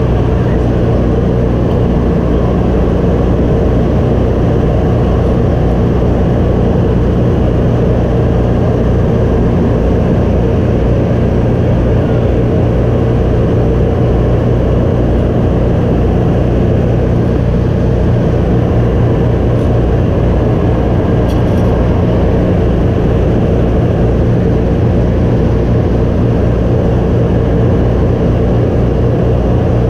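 C-47 transport's two radial piston engines droning steadily in flight, heard from inside the cabin, with a constant rush of air noise.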